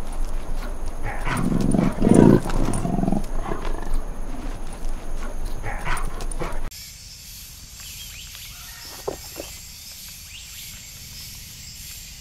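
Young leopards growling as they tussle, loudest about two seconds in. At about seven seconds it cuts suddenly to a much quieter background hiss with a couple of short clicks.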